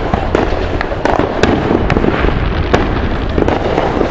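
Fireworks and firecrackers going off all around: sharp pops and bangs every fraction of a second over a steady hiss and rumble of more distant explosions.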